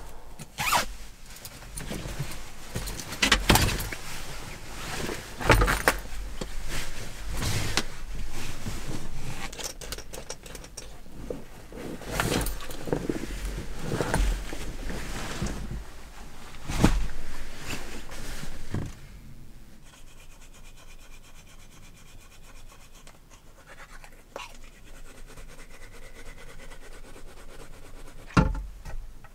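Synthetic sleeping bag rustling and swishing as it is pulled out of its stuff sack and spread out, with a few sharp knocks. About two-thirds of the way through the handling stops and it goes much quieter, with one sharp click near the end.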